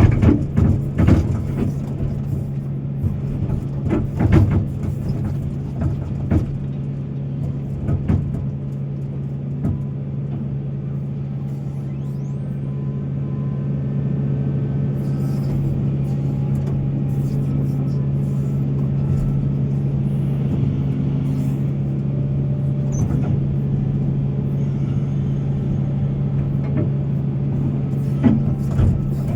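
Large excavator's diesel engine running with a steady deep hum while it loads coal. Clanks and knocks from the bucket and coal come in the first eight seconds or so, and one more near the end.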